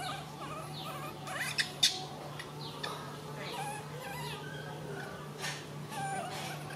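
Baby macaques squeaking: short high calls that fall in pitch. A couple of sharp clicks come just under two seconds in, over a steady low hum.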